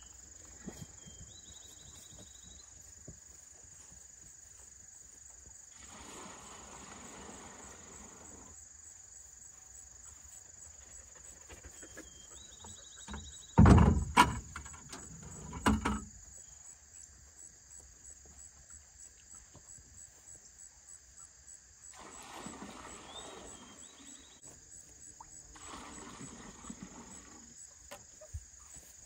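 A steady, high-pitched chorus of insects, with a few loud knocks about halfway through as buckets are handled in a pickup truck bed.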